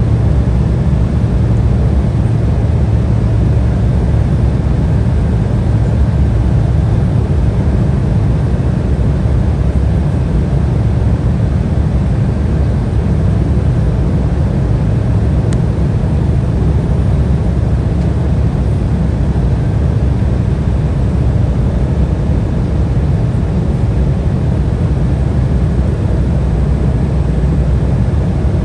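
Steady low roar inside the cabin of an Embraer E175 airliner in flight: airflow and its General Electric CF34 turbofan engines.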